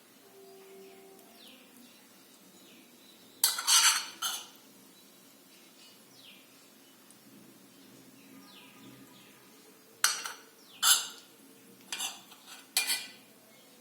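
Kitchen utensils clattering against cookware and dishes: a short burst of clatter about three and a half seconds in, then several separate clinks and knocks from about ten seconds on.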